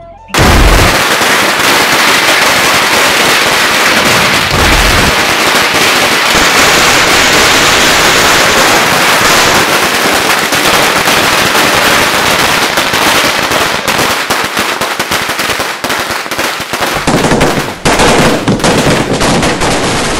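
String of firecrackers going off: loud, dense, rapid crackling and popping without pause, breaking into more separate pops near the end.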